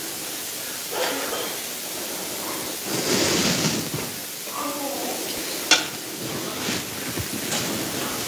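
Handling noises over a steady hiss: a rustle lasting about a second some three seconds in, a sharp click near six seconds and a few softer clicks after it, with faint murmured voices.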